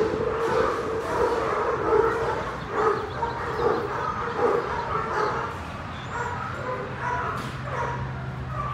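Dog barking over and over in short calls, busiest in the first half and easing off after about six seconds.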